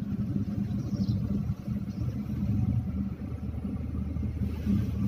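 Steady engine hum and road rumble heard from inside a moving car's cabin, a constant low drone with no sudden events.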